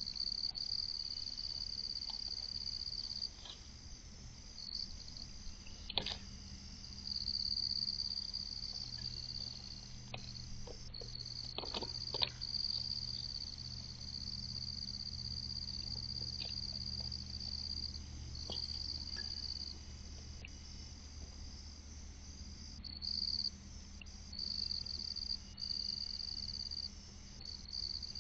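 Chorus of night insects trilling steadily at a high pitch, dropping out for moments now and then, over a low steady hum. A few short clicks stand out, about six seconds in and twice around twelve seconds in.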